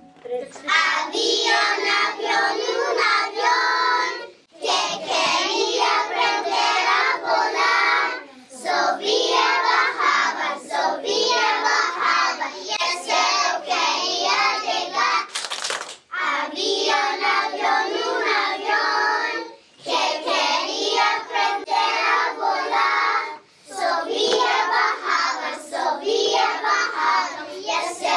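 A group of young children singing together in unison, in phrases of about four seconds with short pauses between them.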